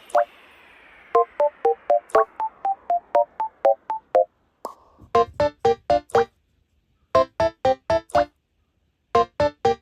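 Background music: short, plucky keyboard notes played about four a second in quick phrases, with brief pauses between the runs.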